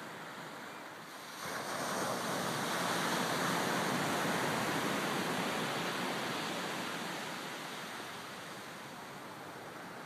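Ocean surf washing onto a sandy beach: the rush swells about a second and a half in, then slowly fades over several seconds.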